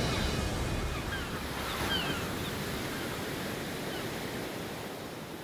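Ocean surf washing on a beach, a steady rushing noise that fades gradually, with a few short high chirps about one, two and four seconds in.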